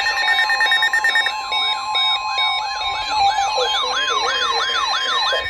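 Electronic sirens yelping together in fast rising sweeps, about two or three a second, over steady alarm tones. One of the steady tones drops out past the middle.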